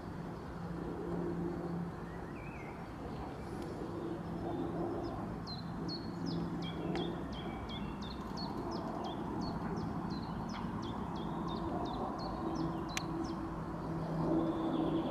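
A small bird chirping a quick run of short, high, falling notes, about three a second, for several seconds in the middle, over a steady low droning hum; one sharp click near the end.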